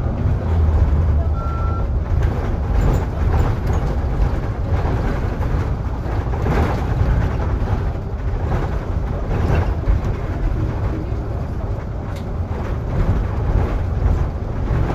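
Solaris Urbino 18 articulated bus running along the road, heard from inside: a steady low engine and road rumble. A short single electronic beep sounds about a second and a half in.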